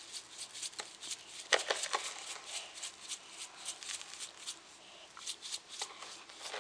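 Sugar sprinkles rattling in a small shaker bottle, shaken in quick, irregular rattles. A metal spoon scrapes and clinks on the plastic high-chair tray.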